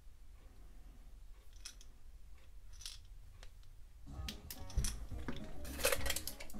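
Workbench handling noises: a few faint clicks, then from about four seconds in, louder crackly rustling and clicks as aluminium foil wrapped around a metal cup is handled.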